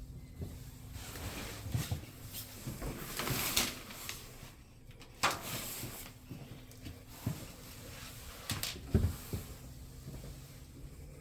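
Scattered knocks and clicks, like cupboard doors or fittings being handled, over a low steady hum; a brief hiss swells about three seconds in and a sharp click comes about five seconds in.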